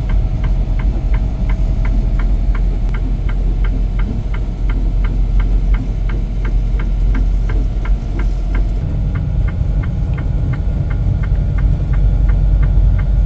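Semi-truck cab interior while driving on a snow-covered highway: a steady low engine and road drone with an even clicking about four times a second. The drone grows louder about nine seconds in.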